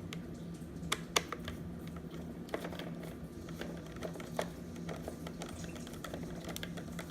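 Scattered light clicks and taps of a screwdriver and the plastic battery cover as the cover is screwed back onto the underside of a Roomba robot vacuum, over a steady low hum.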